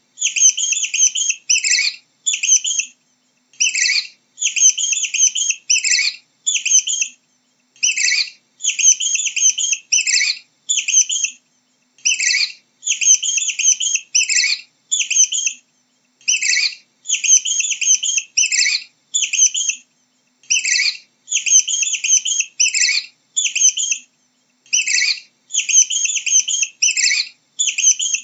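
Mouse squeaking: short bursts of rapid, high-pitched chirping squeaks in a pattern that repeats about every four seconds.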